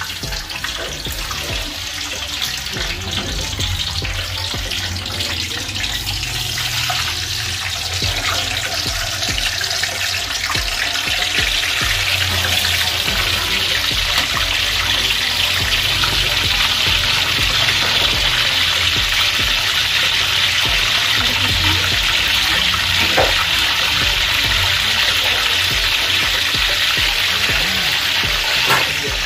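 Hot oil sizzling steadily as battered frog pieces deep-fry, getting louder about ten seconds in.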